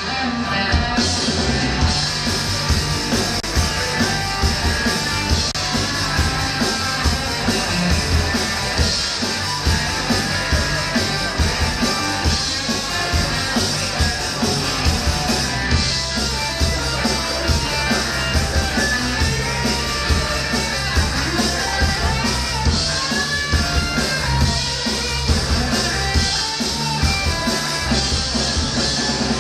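Rock band playing live: electric guitars and drums with a steady beat.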